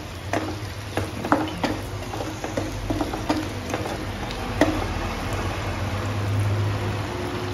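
A spatula stirring and scraping onions and capsicum in sauce in a non-stick wok, with scattered knocks against the pan, mostly in the first couple of seconds. The sauce sizzles over high heat, with a steady low hum underneath.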